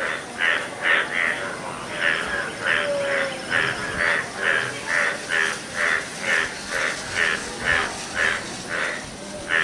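Yellow breeding-season frogs croaking in a rhythmic train of short, harsh calls, about two to three a second: a mating chorus.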